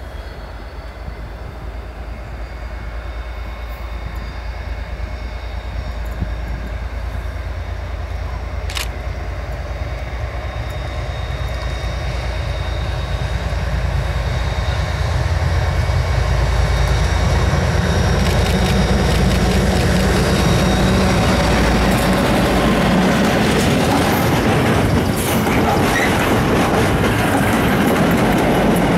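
Class 57 diesel locomotives hauling a rail head treatment train past: the low rumble of the lead locomotive's two-stroke V12 engine grows louder as it approaches. In the second half the wagons pass close by, with heavy wheel-and-rail noise and clicks over the rail joints.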